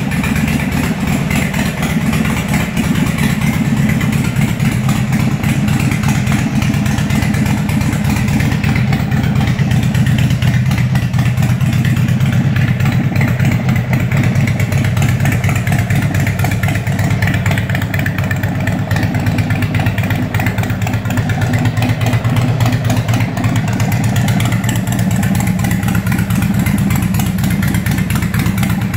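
Harley-Davidson Sportster Seventy-Two's air-cooled V-twin engine idling steadily through chrome drag pipes with slash-cut tips.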